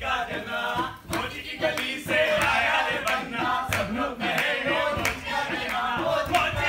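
A group of stage actors chanting and shouting together, with a few sharp knocks among the voices.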